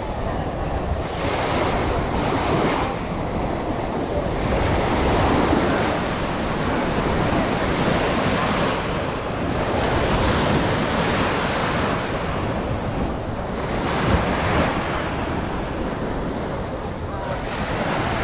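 Waves breaking and washing up a sandy beach, the surf swelling and easing every few seconds, with wind buffeting the microphone.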